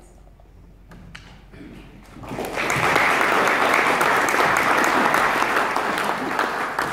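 Audience applauding: a few scattered claps at first, then full applause breaking out about two seconds in and starting to fade near the end.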